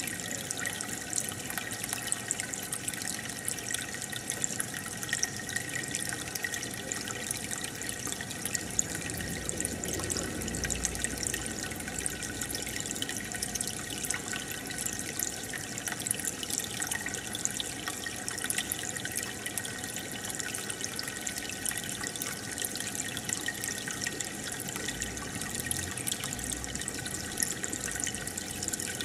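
Aquarium air bubbler and filter: a steady stream of air bubbles rising through the tank water and bursting at the surface, making a continuous trickling, fizzing bubble sound.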